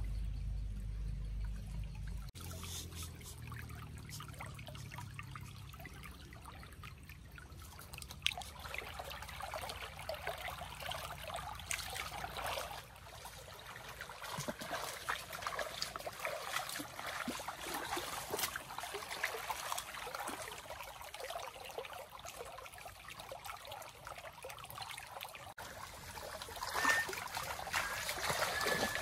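Shallow stream trickling over a rocky bed, with irregular splashes of feet wading through the water. A low rumble is present in the first couple of seconds.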